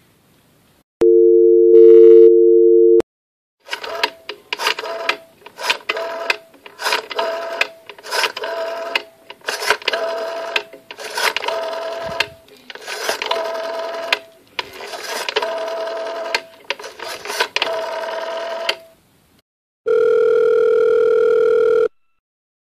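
Telephone call-progress tones. A steady dial tone runs for about two seconds, followed by a long string of short, irregular tones as a number is entered. Near the end a single two-second ringback tone sounds while the call rings through.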